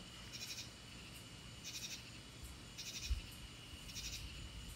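Night insects calling: a steady high drone under a pulsed, chirping trill that repeats four times about once a second. A soft low thump about three seconds in.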